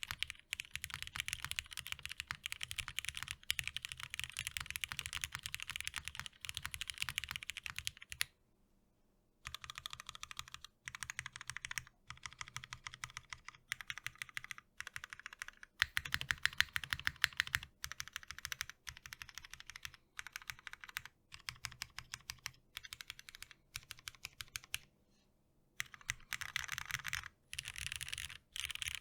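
Fast, continuous typing on a custom tenkeyless mechanical keyboard with lubed Cherry MX Hyperglide Black linear switches in a top-mounted aluminium plate. The keystrokes come in dense runs, broken by short pauses, with a longer break about eight seconds in and another near the end.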